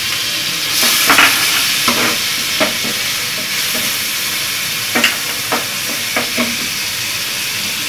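Onions and ginger paste sizzling in hot oil in a pot. A wooden spatula stirs and scrapes against the pot, making short knocks over the steady hiss, in two clusters: about a second in and about five seconds in.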